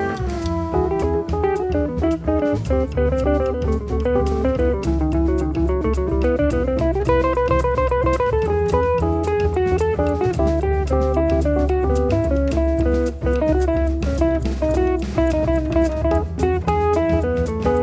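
Jazz band with a guitar playing a fast single-note solo line over bass and drum kit.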